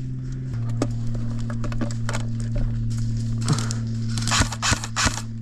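Airsoft guns firing, heard as scattered sharp snaps and clicks of shots and BB hits, clustering into a quick run of shots about four seconds in.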